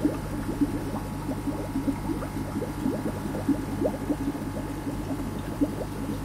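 Aquarium water bubbling and gurgling: a dense run of small, quick, irregular blips over a steady low hum.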